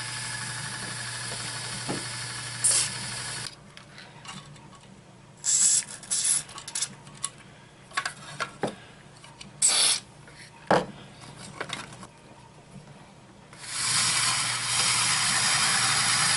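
Lortone 3A rock tumbler's motor and rollers running with a steady hum, which stops about three and a half seconds in. Then come scattered knocks and clatter as the barrel is handled. The tumbler starts again about thirteen and a half seconds in, running louder and steadier with weight on its rollers, now turning at a proper speed after its new belt.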